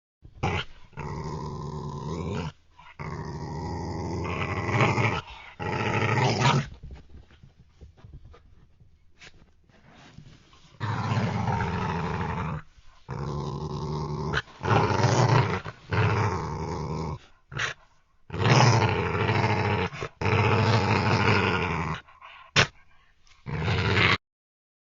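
Wolf growling and snarling: a string of separate rough growls, each a second or two to a few seconds long, broken by short gaps, with a quieter stretch about eight to ten seconds in.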